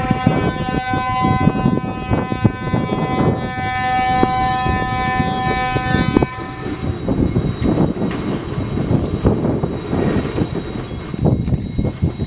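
Scramble alarm siren sounding a steady, horn-like tone for about six and a half seconds over a continuous rumbling roar, then cutting off while the roar carries on.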